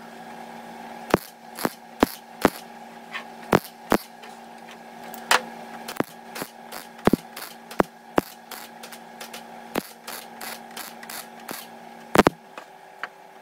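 Hand tools working sheet steel: irregular sharp taps and clicks, about one or two a second and of varying strength, over a faint steady hum.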